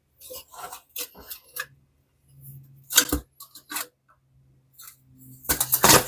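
Hands working on the disassembled iron: irregular scrapes, rustles and clicks of small metal parts and wiring being handled, loudest near the end.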